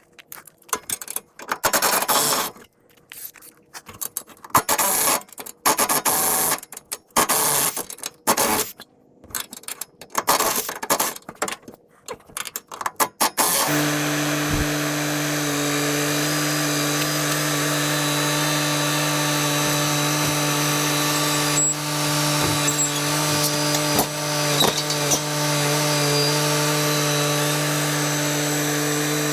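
Power drill running in short stop-start bursts, driving out the bolts of a Jeep roof rack. About halfway through, the bursts stop and a steady machine hum takes over.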